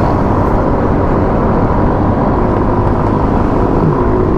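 Motor scooter riding at steady speed: a continuous engine and drive drone mixed with heavy wind rush on the rider's microphone.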